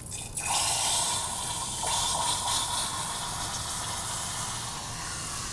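Hot rendered beef fat pouring from a skillet into a glass measuring cup. The pour begins about half a second in and runs steadily, with a brief knock near two seconds.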